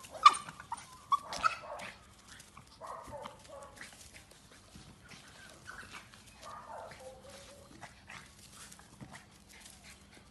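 Small dog barking and yipping, with a few sharp, loud barks in the first second and a half, then softer yips.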